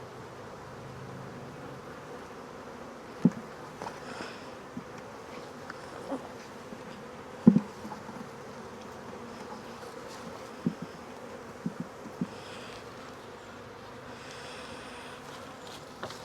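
Honey bees from a crowded nuc colony buzzing steadily in a dense swarm around the open frames. A few short, sharp knocks break in, the loudest about halfway through.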